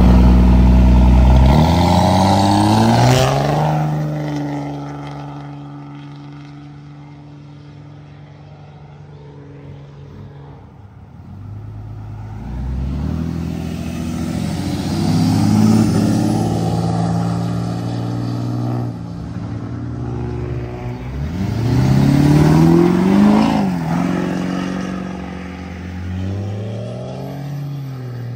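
Modified cars leaving one after another, engines revving up and dropping in pitch as they drive past. The loudest passes come in the first few seconds and again a little past two-thirds of the way through, with quieter engine running in between.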